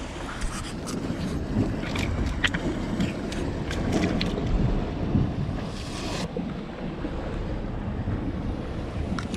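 Wind buffeting the microphone over the sound of the sea, with a few light clicks in the first half and a brief hiss about six seconds in.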